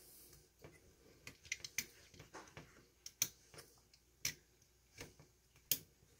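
Faint, irregular small clicks and light metallic ticks of hands working bare copper ground wires at a metal electrical box, joining the grounds, with a few sharper clicks about three, four and five and a half seconds in.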